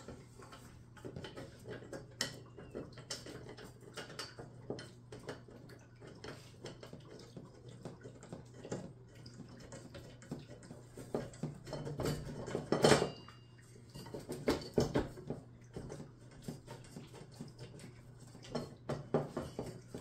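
Metal bakers-rack frame bars and long bolts clinking and tapping as they are handled and bolted together, a scattered run of small metal clicks. About two-thirds of the way through comes one louder metal clank that rings briefly.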